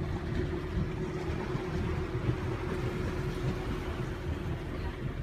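Boat motor running steadily, a constant hum over a low rumble.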